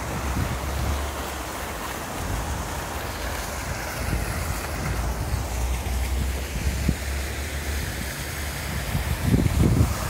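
Wind buffeting the microphone in gusts, heaviest near the end, over the steady splashing of a pond's jet fountain and waterfall.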